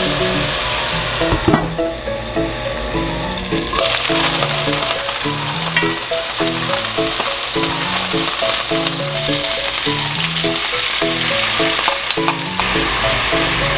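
Chicken pieces sizzling as they fry in a hot pan and are turned over, with a few light clicks of the tongs. The sizzle thins briefly about two seconds in. Light background music plays throughout.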